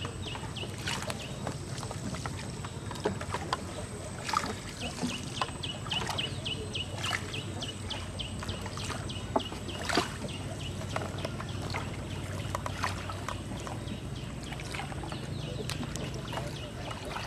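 A boat's motor runs with a steady low hum throughout. Over it come runs of short, high, evenly spaced chirps, about three a second: one run ends about a second in, and another runs from about four and a half seconds to nine. Scattered sharp knocks sound throughout, the loudest about ten seconds in.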